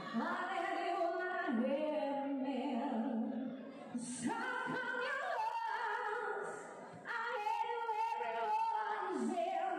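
A woman singing into a hand-held microphone, holding long notes, with two short breaks for breath.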